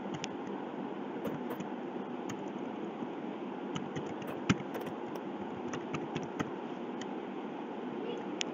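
Computer keyboard keys clicking in an irregular run as text is typed, over a steady low background noise. The loudest keystroke comes about four and a half seconds in.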